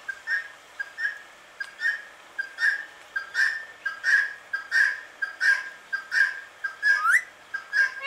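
Indian ringneck parakeet giving a steady series of short, soft whistled calls, about three every two seconds, ending with a rising whistle near the end.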